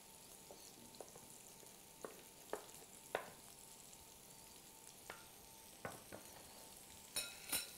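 Faint clicks and taps of a fork scraping diced boiled potato off a wooden cutting board into a glass bowl, about nine in all and scattered unevenly, over a faint steady sizzle from a pan cooking.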